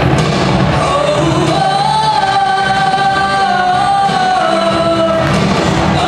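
A girl singing solo into a microphone over instrumental accompaniment, holding one long note from about two seconds in until past five seconds.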